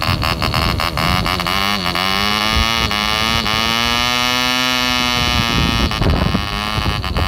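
OTM Stryz (Swift) 1.5 cc model diesel engine running with a 9x6 propeller, a steady buzzing note. Its pitch climbs over a couple of seconds as the compression lever is turned, holds, then runs unevenly for about a second near the end before steadying. The engine is being run-in very rich and under-compressed.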